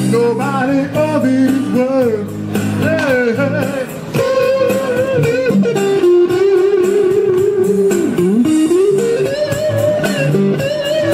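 Blues lead lines on an electric guitar played through a small portable amplifier, with bent, sliding and wavering notes and a long held note a little past the middle.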